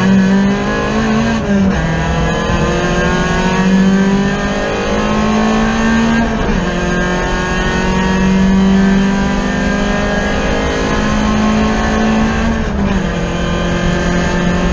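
Race car's engine heard from inside the cockpit at full throttle down a straight, its pitch climbing steadily in each gear and dropping sharply at three upshifts: about one and a half seconds in, about six and a half seconds in, and near the end.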